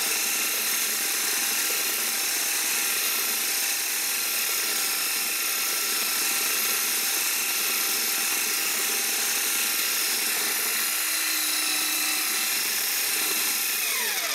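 Handheld electric paddle mixer running steadily, its paddle churning a batch of lightweight concrete in a plastic bucket. Near the end the motor's pitch falls as it winds down.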